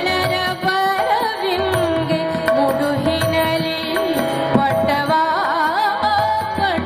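A woman singing a Kannada song live through microphones, her voice gliding and winding through ornamented phrases over a steady drone, with low drum beats underneath.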